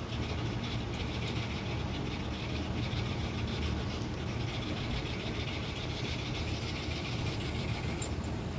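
Steady low background rumble with a faint hiss, unchanging throughout.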